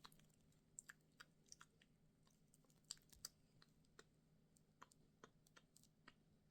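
Quiet, close-up ASMR clicking: about fifteen short, soft clicks at irregular intervals, over a faint steady hum.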